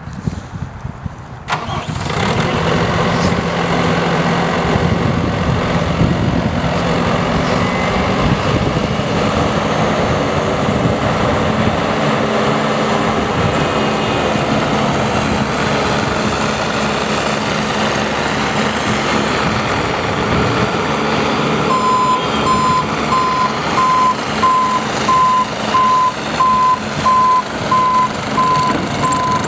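Bobcat T590 skid steer's diesel engine starting about a second and a half in, then running steadily. About two-thirds of the way through, its backup alarm begins beeping evenly, about once a second, as the machine reverses.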